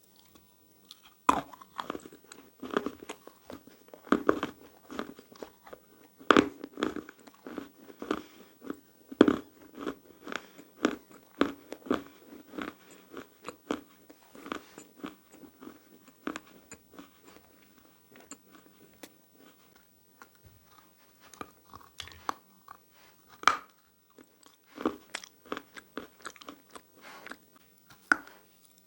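Close-miked biting and chewing of dry handmade clay and plaster chalk: loud sharp crunches as pieces are bitten off, each followed by runs of smaller crunching chews. There is a quieter spell about two-thirds of the way through before the biting picks up again.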